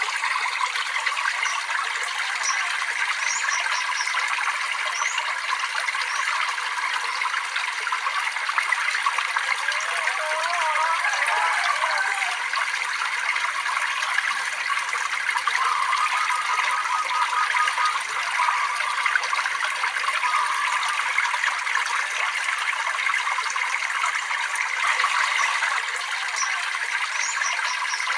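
Water trickling and babbling steadily.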